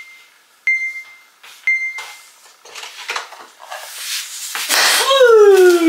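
Three short electronic countdown beeps about a second apart, then a door opening and scattered rustling and footsteps. Near the end a louder rush of noise with a tone that slides steadily downward.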